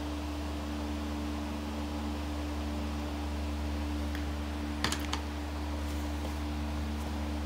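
Steady electrical hum with a quick cluster of three light clicks about five seconds in, and a couple of fainter clicks after.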